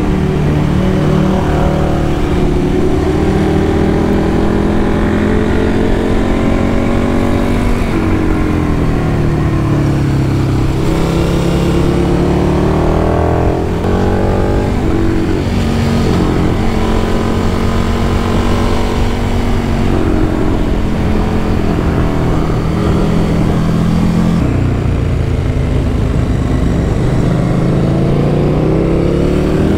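KTM 1290 Super Duke R's V-twin through a Spark full exhaust, riding under load: the revs climb and then drop at each gear change, several times over.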